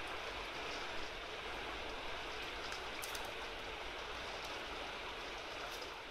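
Fast-flowing river water rushing over a shallow riffle, a steady, even rush. A few faint clicks come through near the middle and the end.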